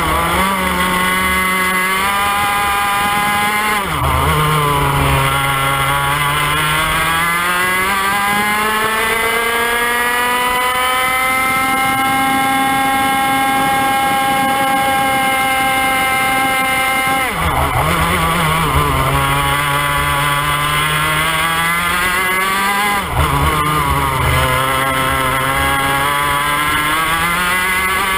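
IAME X30 125cc two-stroke kart engine at full racing pace. The engine note climbs steadily down a long straight and holds near its top, then drops sharply under braking three times, a few seconds apart near the middle and later, climbing again each time the kart exits a corner.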